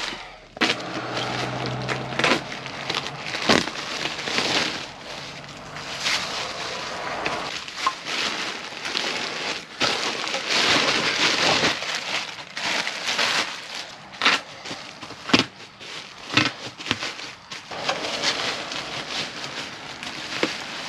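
Plastic sheeting and bubble wrap crinkling and rustling as chrome motorcycle exhaust parts are unwrapped by hand, with scattered sharp knocks.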